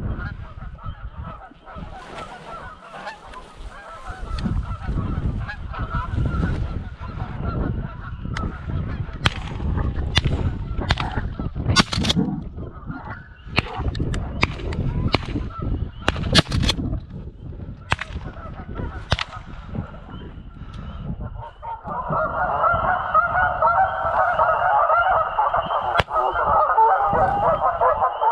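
Geese honking, faint at first, then a loud, dense chorus for the last six seconds as a flock comes in close. A low rumbling noise on the microphone and several sharp clicks run underneath.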